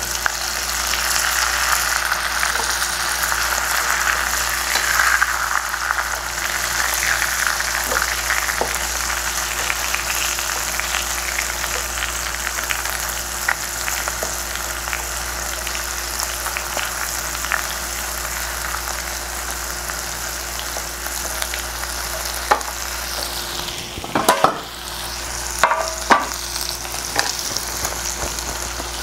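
Chicken thigh pieces sizzling steadily as they fry in their own rendered fat in a stainless steel pan, with a wooden utensil scraping and tapping against the pan now and then. A few louder knocks come near the end, where the sizzle briefly dips.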